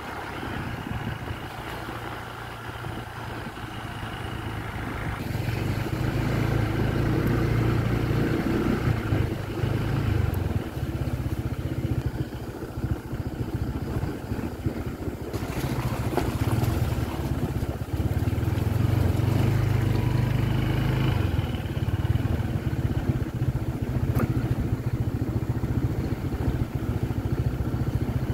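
Motorcycle engine running as it is ridden along a road, its note rising and easing with the throttle: it gets louder about five seconds in, drops back for a few seconds around the middle, and picks up again.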